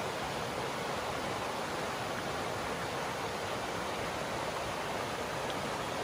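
Shallow mountain trout stream running over rocks and riffles: a steady rushing of water.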